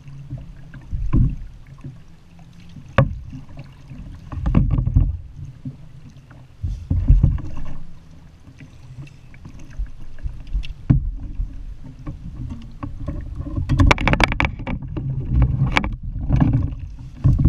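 Handling noise aboard a fishing kayak as a cod is reeled in and lifted aboard: low rumbling bumps and several separate sharp knocks, then a quick clatter of knocks near the end.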